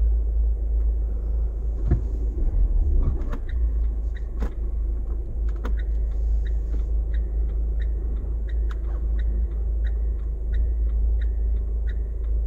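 Car cabin with the engine and road rumble low and steady, while a turn-signal indicator ticks evenly about twice a second from about three seconds in. A few brief knocks sound near the start.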